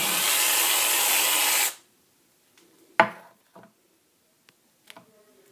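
Aerosol whipped cream can spraying: a loud steady hiss that cuts off suddenly in the second half of the first two seconds, followed by a single sharp click about three seconds in and a few faint clicks.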